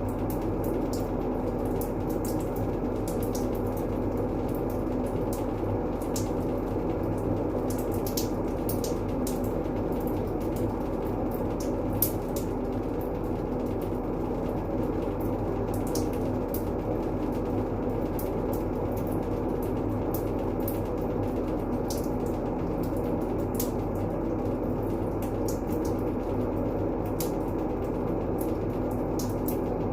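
Steady, low-pitched rushing noise played as a continuous calming white-noise track, with faint scattered crackles over it and a single small click about twelve seconds in.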